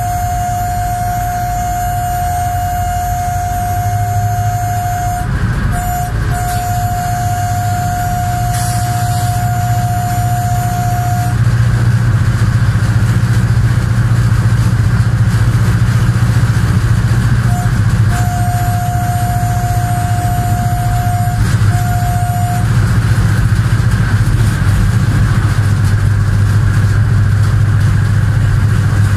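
Diesel locomotive's engine running with a steady low drone, heard from the cab; it grows louder about twelve seconds in. A steady high tone sounds in long stretches through the first half and again for a few seconds later.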